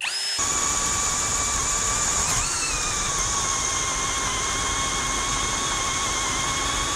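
Cordless drill driving a 1.5-inch spade bit through a doubled-up 2x4: the motor spins up at the start and runs as a steady whine under load, its pitch sagging a little about two and a half seconds in as the bit bites deeper into the wood.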